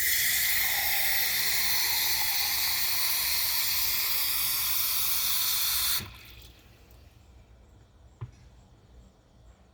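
Hot water running steadily from a tap into a bottle of vinegar and hair-conditioner mix, cutting off suddenly about six seconds in. A single small click follows a couple of seconds later.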